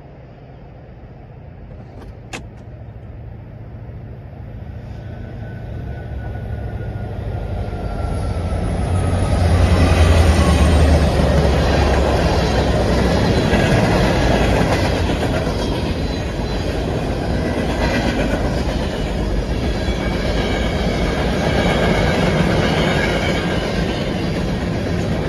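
Norfolk Southern diesel freight train approaching and passing, growing steadily louder to a heavy engine rumble as the locomotives go by about ten seconds in. Then a long string of tank cars and covered hoppers rolls past with a steady rumble and a clickety-clack of wheels over the rail joints.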